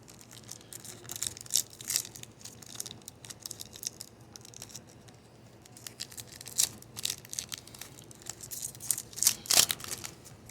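Foil wrapper of a baseball card pack being torn open and crinkled: a run of crackles with a few sharper, louder rips.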